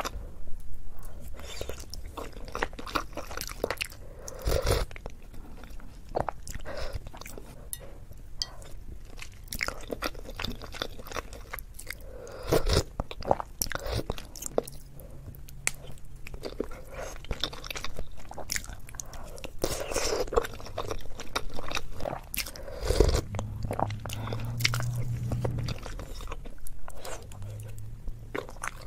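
Close-miked eating of soft-boiled eggs: wet chewing, biting and mouth smacks, with sips of spicy sauce from a wooden spoon and chopsticks clicking. The sounds come as irregular short clicks and smacks with a few louder bites.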